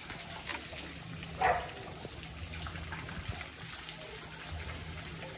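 Steady trickling, running water, with one short sharp sound about a second and a half in.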